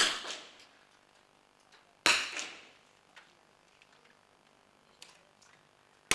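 Two .22 rimfire target rifle shots about two seconds apart, each a sharp crack with a short echo tail in the shooting hall, with a third starting right at the end.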